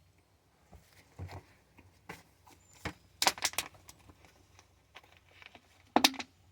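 Handling noise: a run of sharp clicks, taps and soft rustles as small objects are picked up and moved, with a quick cluster of clicks about three seconds in and a louder knock near the end.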